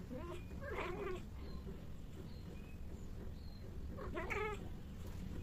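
Persian cats mating: a cat caterwauls twice, with one drawn-out call about half a second in and a shorter one around four seconds in, the yowling typical of a tom mounting a queen in heat.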